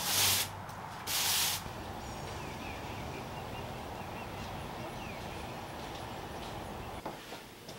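A broom sweeping brick pavers: two swishing strokes in the first second and a half. Then a steady outdoor hiss with a bird chirping a quick run of notes.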